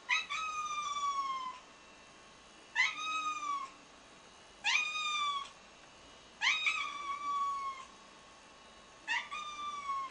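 A domestic cat meowing five times, each meow jumping up in pitch and then sliding slowly down, about every two seconds.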